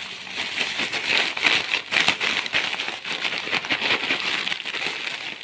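Thin clear plastic shopping bag and the snack packets inside it crinkling and rustling as hands handle the bag to get the packets out. The crackle is continuous and irregular.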